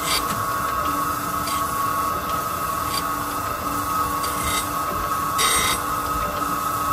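Okamoto Accugar 124N hydraulic surface grinder running, a steady whine from the wheel spindle and hydraulics under short grinding hisses every second or two as the reciprocating table carries the steel workpiece under the wheel.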